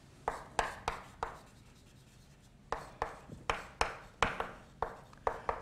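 Chalk writing on a blackboard: short sharp taps and scrapes as letters are written, a few in the first second, a pause, then a quicker string of strokes through the second half.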